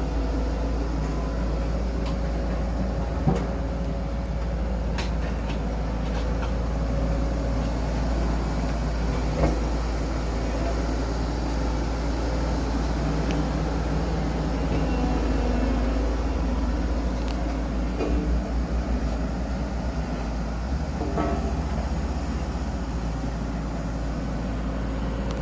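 Road roller's engine running steadily with a deep, continuous rumble, with a couple of brief knocks.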